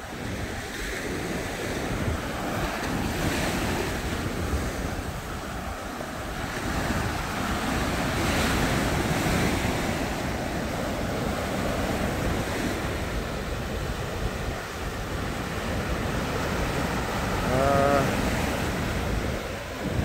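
Ocean surf breaking and washing up a sandy beach, the rush of water swelling and easing as each wave comes in, with wind buffeting the microphone. A short wavering pitched call sounds briefly near the end.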